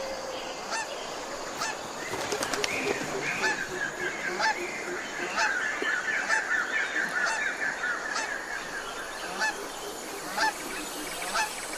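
Birds calling: many short, quick calls overlapping, thickest in a rapid run through the middle.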